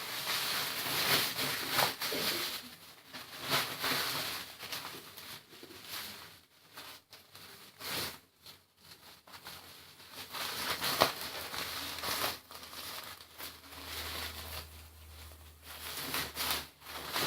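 Irregular rustling and crinkling as a large cloth is handled and folded, coming and going in short bursts.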